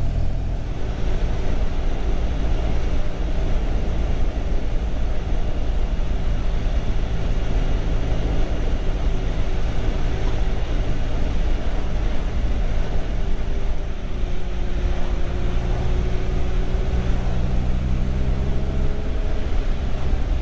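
Motorcycle engine running steadily on the move, its note shifting slightly near the end, under a constant rush of wind and road noise.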